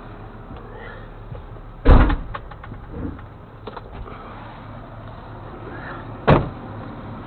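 Two loud slams about four seconds apart, the first followed by a few lighter clanks and rattles, over a steady low engine idle.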